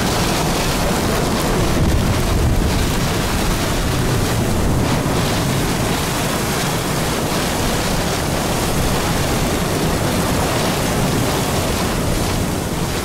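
Strong wind buffeting the microphone in a loud, steady rush that swells a little at times, out of the north as a tornado passes just to the south.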